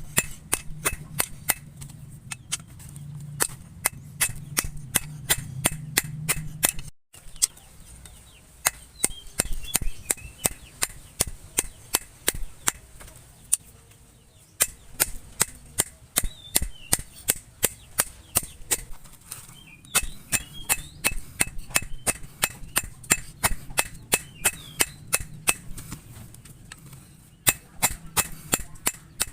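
Hand hammer striking hot steel on an anvil, sharp ringing blows about two to three times a second in runs with brief pauses, as the bearing steel is forged out.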